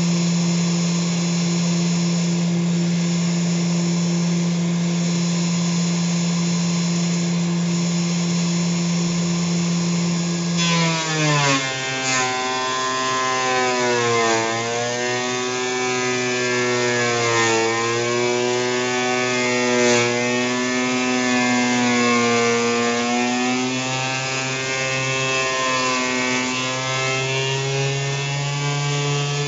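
Electric benchtop thickness planer running with a steady whine. About ten seconds in, a wooden post is fed through: the motor's pitch drops and wavers up and down as the knives take the cut.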